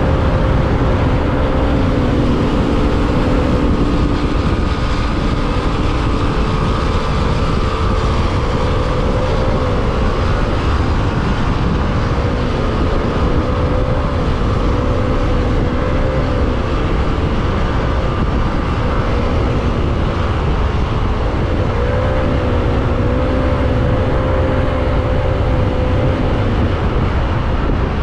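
Motorcycle engine running at a steady cruise of around 90–100 km/h, its pitch wavering slightly, under heavy wind rush on the microphone.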